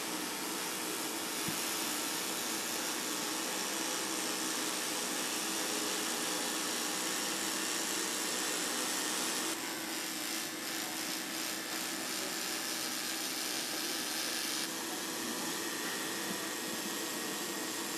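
Robotic MIG welding on an aluminium motorcycle frame: a steady arc hiss over a constant machine hum, changing in tone abruptly about ten and fifteen seconds in.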